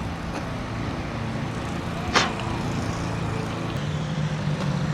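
Steady rush of riding noise from a road bicycle underway: wind on the microphone and tyre noise, with low steady hum throughout and one sharp click about two seconds in.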